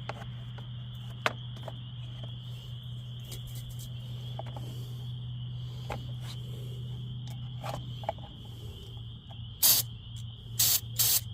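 Three short hisses of an aerosol can of starter fluid being sprayed, near the end, over a steady low hum and a steady high-pitched buzz.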